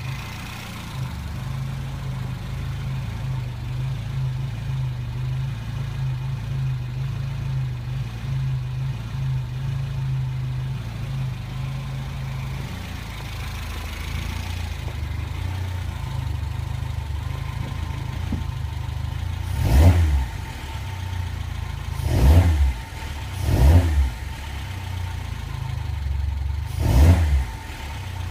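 Reliant Regal van's small engine idling steadily, its note settling lower about halfway through, then four short throttle blips near the end.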